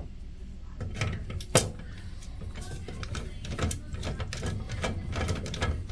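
Irregular small clicks and clatter of hand work on pinball machine parts, screws and a driver being handled and fitted, with one sharp click about one and a half seconds in.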